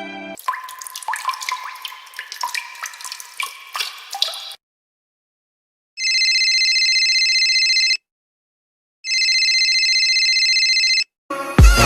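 Water drops dripping and plinking for about four seconds. After a short silence, an electronic ringing tone sounds twice, each ring about two seconds long.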